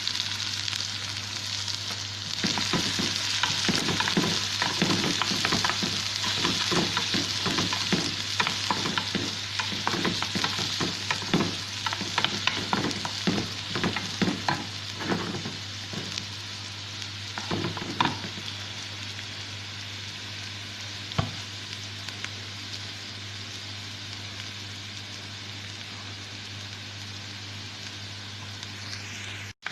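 Garlic and onion sizzling in hot oil in a pan, stirred in a run of quick scraping strokes for the first half. After that they fry on in a steady, quieter sizzle, with one knock of the utensil about two-thirds of the way through.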